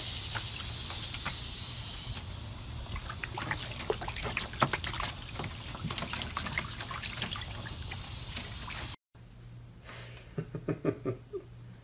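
A puppy splashing and pawing in shallow water in a plastic kiddie pool: irregular sloshing and slaps of water, loudest about four and a half seconds in. Near the end, after a break, comes a short run of quick pitched sounds.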